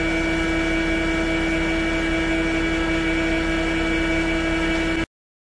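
A motor-driven machine running steadily with a constant whine over a low rumble. It cuts off abruptly about five seconds in.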